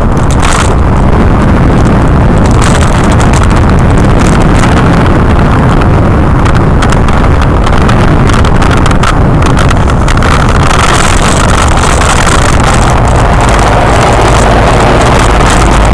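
Loud wind rumble on a bicycle-mounted camera's microphone while riding, mixed with the running of a following concrete mixer truck. The truck's engine and tyre noise grows louder from about ten seconds in as it comes alongside to pass.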